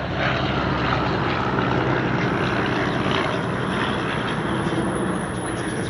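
Propeller aircraft engine running steadily overhead, a continuous even drone.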